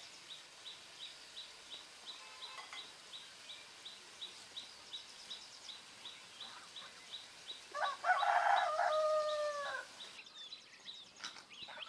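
A rooster crows once, a single call of about two seconds, about eight seconds in. Under it runs a high, even chirping that repeats about three times a second.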